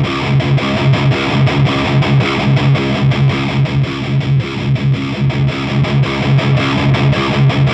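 Distorted electric guitar through an Orange Rockerverb 100 MKIII tube amp, playing a fast riff of short, repeated low notes. The amp's mid control is turned meanwhile; on this amp the mids carry much of the overall sound.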